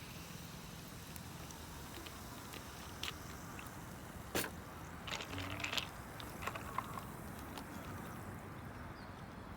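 Faint steady background noise with a few scattered sharp clicks and taps.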